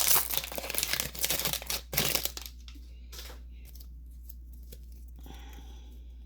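Foil booster-pack wrapper being torn open and crinkled by hand for about the first two seconds, then stopping, with a single soft rustle after.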